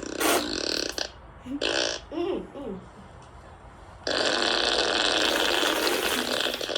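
Fart sound effects played through a phone speaker: a few short blasts, then about four seconds in a long, drawn-out fart that keeps going.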